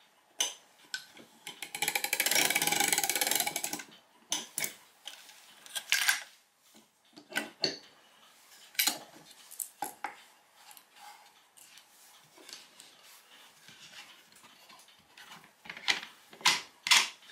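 Steel chain and metal arbor fittings of a plywood clock mainspring winder clinking and rattling as they are unhooked and handled. A dense rattle comes about two seconds in, then scattered clinks and knocks.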